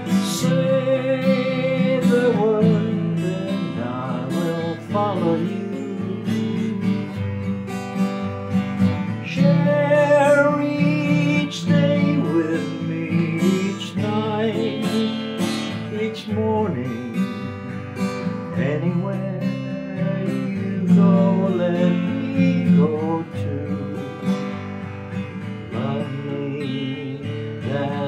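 Takamine acoustic guitar strummed as a slow ballad accompaniment, with a man singing along.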